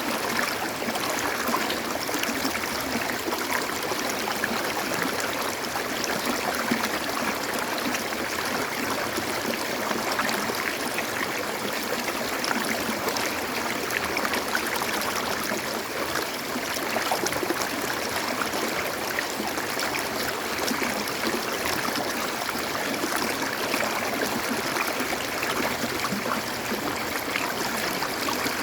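Running water: a steady rush of flowing stream water.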